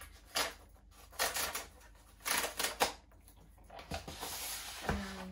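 Cardboard mailer box being opened by hand: a few short scrapes and rips of cardboard, then a longer rasping scrape near the end.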